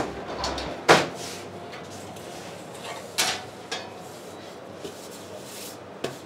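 Kitchen handling clatter: a sharp knock about a second in, the loudest sound, then a few lighter knocks over a steady low background noise.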